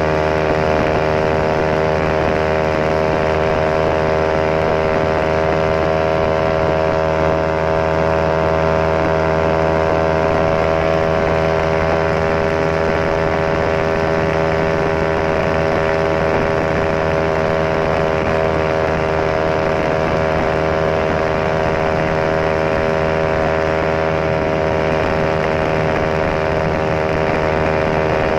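Honda RS150R's single-cylinder DOHC four-stroke engine running at a steady speed through an aftermarket CJ Ipoh exhaust, its note holding nearly the same pitch throughout.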